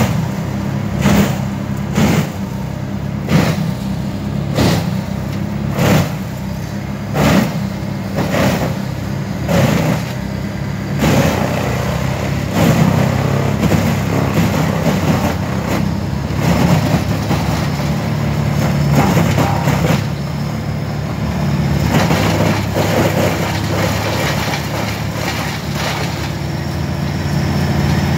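A Ditch Witch SK1550 mini skid steer's engine and a wood chipper's engine run together, with a sharp knock about every second and a quarter for the first eleven seconds. After that a steady grinding rush sets in as the log is fed into the chipper.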